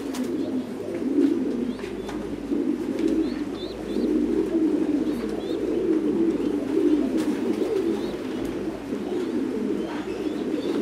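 A loft full of caged Thai Titan meat pigeons cooing together in a steady, overlapping chorus. A few faint high chirps sound about three and four seconds in.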